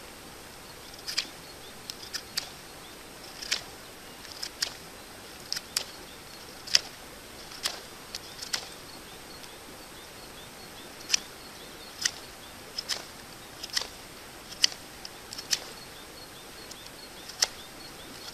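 Small Victorinox pocket knife whittling a stick of ash wood: short, sharp cutting strokes at an irregular pace, often two or three close together, with a pause of a couple of seconds about halfway through.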